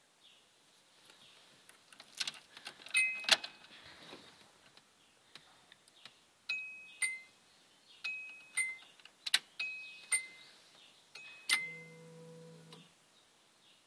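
An electronic two-note chime sounds over and over, each chime falling in pitch, mostly in pairs about half a second apart. Sharp clicks fall between the chimes, and a low steady hum sounds for about a second near the end.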